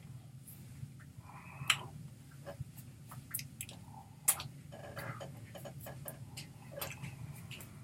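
Scattered soft clicks, taps and rustles from a person signing, his hands meeting each other and his sleeves moving, over a steady low hum. Two sharper clicks stand out, one a little before two seconds in and one just after four seconds in.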